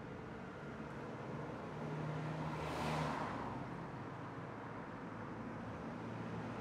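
A car passing by on the street, swelling and fading away about three seconds in, over low traffic noise.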